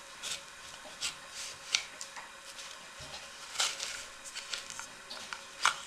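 Hands rubbing and handling a felted wool hat on a wooden hat block: a series of short, scratchy rustles and brushes, two of them sharper and louder, about a third of the way in and near the end.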